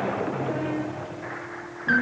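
Dramatic orchestral score with sustained held tones over the fading rumble of a depth-charge explosion, then a sudden louder hit near the end.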